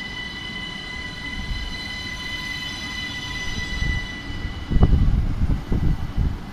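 ÖBB Cityjet class 4746 electric multiple unit departing and rolling past. A steady electric whine fades out about halfway through, then a heavy low rumble with thumps takes over as the cars pass.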